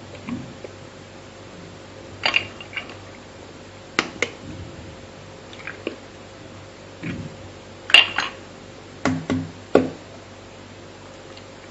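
Raw eggs cracked one after another into a mixing bowl: sharp taps of shells knocked against the bowl and breaking, in short clusters a few seconds apart.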